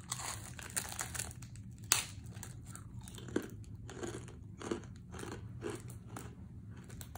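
A person biting and chewing a crisp rice cracker, with repeated crunches. The sharpest, loudest crunch comes about two seconds in, followed by a run of chewing crunches.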